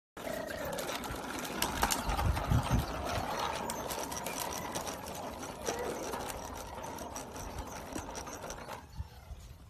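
Hard plastic wheels of a toddler's ride-on trike rolling over concrete, a fast continuous rattle that dies away near the end.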